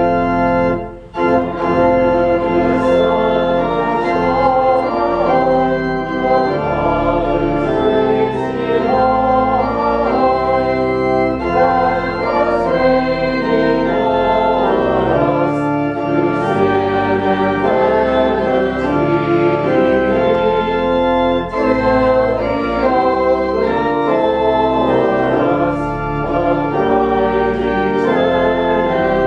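Church organ playing sustained full chords, with a brief break about a second in.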